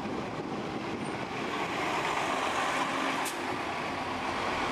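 Articulated city bus driving past in street traffic: a steady rush of engine and tyre noise that swells slightly midway.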